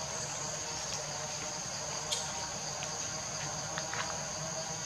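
Steady high-pitched drone of insects in the forest, a constant shrill whine, with a few faint clicks about halfway through and near the end.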